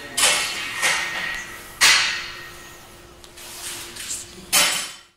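Gym sounds during a set of barbell back squats: several sudden, sharp, hissing bursts, each fading quickly, the loudest about two seconds in.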